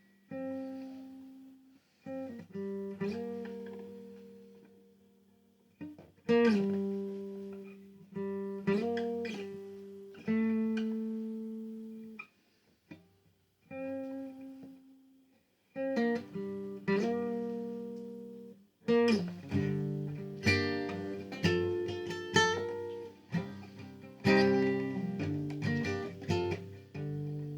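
Solo acoustic guitar playing slow chords, each struck and left to ring out, with short pauses between phrases; the playing grows busier and fuller about two-thirds of the way through.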